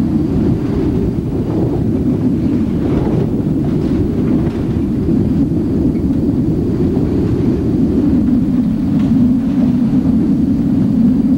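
A truck driving along a gravel road: a steady low rumble of engine and tyres rolling over gravel.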